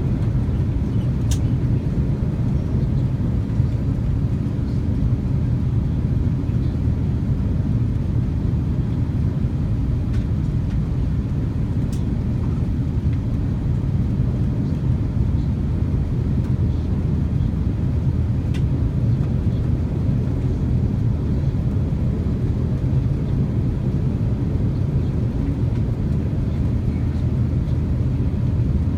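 Steady low rumble of an Airbus airliner's engines and airflow heard inside the passenger cabin in flight, with a few faint clicks.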